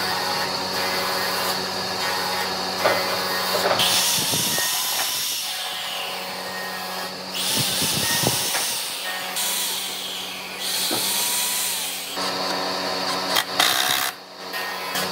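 Hand-held electric drill boring pilot holes down through a thick wooden board, run in three bursts of a few seconds each, the motor's pitch rising as each burst starts.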